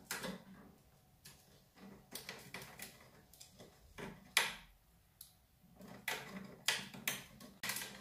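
Quaker parrot chewing and tearing at a woven basket toy with its beak: irregular sharp crackles and snaps with short gaps, the loudest snap about halfway through and a quicker run of them near the end.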